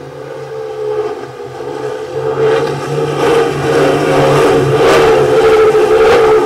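Twin Mercury Racing 300 outboard engines on a 24 Skater powerboat running at high speed, growing louder over the first few seconds as the boat comes closer, with the rush of spray off the hull.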